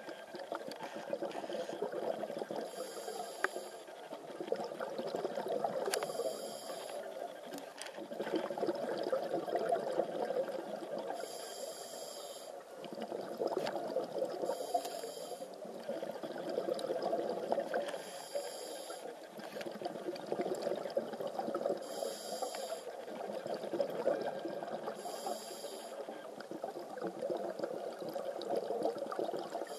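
Scuba diver breathing through a regulator underwater: a short hiss on each inhale, about every three to four seconds, with bubbling, crackling exhalation noise in between.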